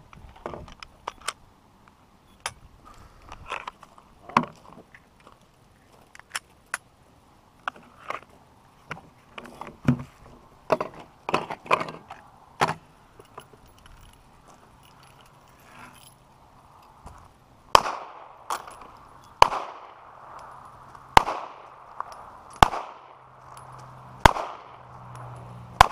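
Pistol shots: a string of about seven loud shots roughly a second apart over the last eight seconds, each ringing briefly. Fainter, irregular shots and clicks come before it.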